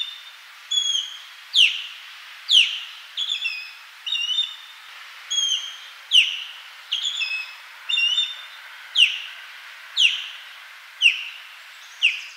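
Osprey calling: a series of sharp, whistled calls about once a second. The loudest slide steeply downward, with shorter level chirps in between.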